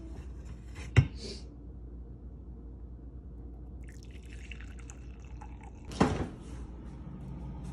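Hot coffee poured from a glass coffee-maker carafe into a ceramic mug, a splashing stream lasting about a second and a half, about four seconds in. Two knocks stand out: a sharp one about a second in and a louder one about six seconds in.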